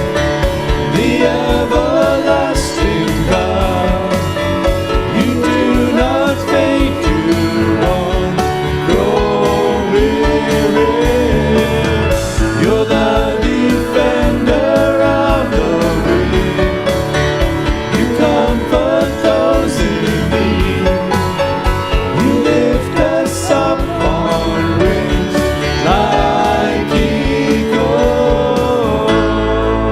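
Contemporary worship-song music from a church band, with a steady beat and a melody line. Near the end the beat stops, leaving a held chord.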